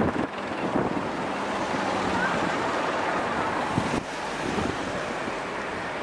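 Wind blowing over the microphone in low, rumbling gusts, over a steady rushing hiss of open seaside air.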